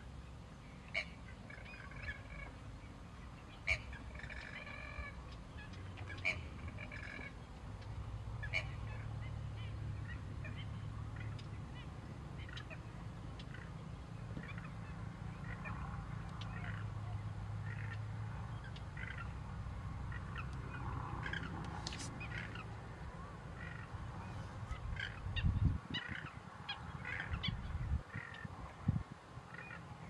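Wading birds calling: scattered short calls, some in quick runs of several notes, over a low steady rumble. A few louder low thumps come near the end.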